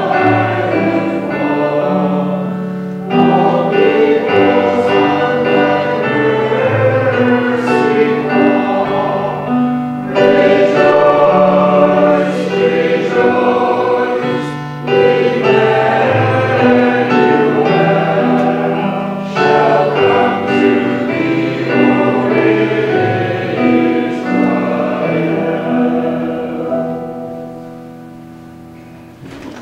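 Choir singing sustained chords in phrases with short breaks between them, the final chord fading away over the last few seconds.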